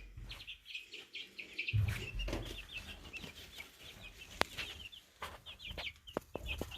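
Orpington chicks peeping continuously, many short high chirps a second. A low thump comes about two seconds in, and a few sharp clicks in the second half.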